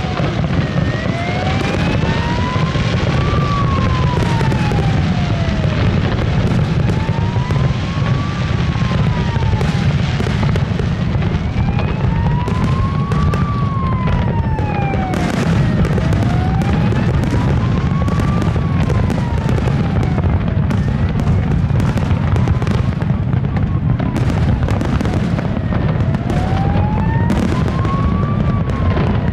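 Fireworks display: aerial shells bursting in a continuous barrage of bangs over a steady rumble. A siren wails up and down in the background, one rise and fall about every five seconds.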